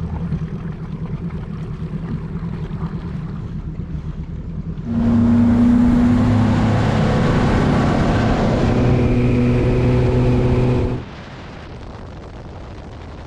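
A boat's outboard motor running on the water, a steady engine hum under rushing wind and water noise. About five seconds in it turns suddenly much louder, with strong steady engine tones, and near the end it drops abruptly to a lower, quieter hum.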